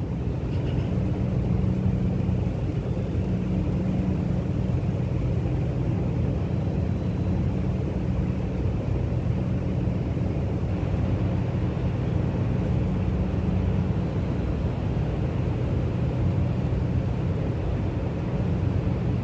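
Steady low hum with a faint, even background of room noise, typical of a sound system's mains hum picked up through an open microphone.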